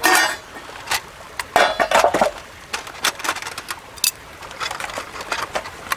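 Titanium pots, lid and plate of a Trangia 27-7 cook set clinking and knocking together as they are stacked. A series of clatters, busiest about two seconds in, then a short bright clink about four seconds in and a few lighter taps.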